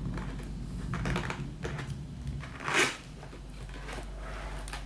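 Keyboard packaging being handled and opened: scattered light clicks and taps, with one louder rustling swish a little under three seconds in.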